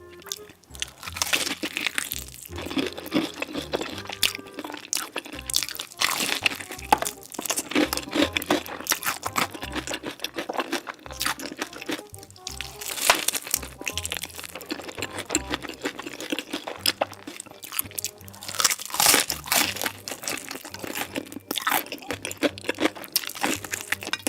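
Close-miked crunching of crisp food being bitten and chewed, dense and irregular, over background music.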